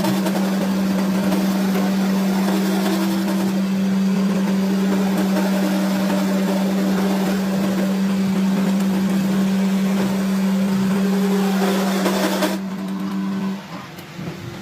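A workshop machine running steadily, a strong hum under a loud hiss. The hiss cuts off suddenly about twelve seconds in and the hum dies away a second later.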